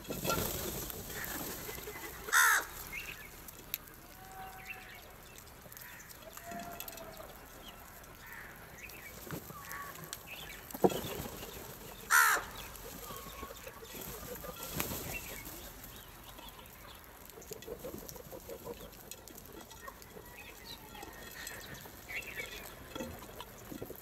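A flock of house crows calling while they feed, with many short scattered caws and two loud harsh caws, about two seconds in and again just past the middle. There is a single sharp tap just before the second loud caw, and a flutter of wings.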